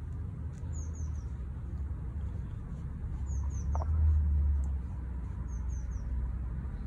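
A small bird calling: short, very high, downward-slurred chirps in quick runs of three, repeating every two to three seconds, over a steady low rumble that swells briefly about four seconds in.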